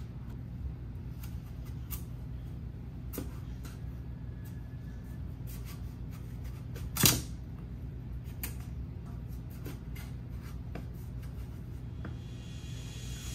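A metal spoon scraping seeds from a halved acorn squash, then a large kitchen knife cutting through the hard squash on a wooden cutting board: scattered taps and knocks, with one sharp knock about seven seconds in, over a steady low hum.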